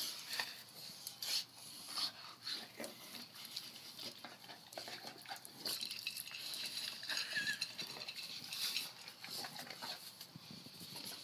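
Dogs lapping and slurping water from a glass bowl as they try to mouth out a piece of cereal floating in it, with irregular wet splashes and clicks.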